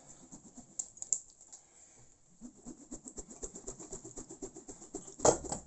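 Rapid light tapping, about seven taps a second, ending in one louder knock near the end.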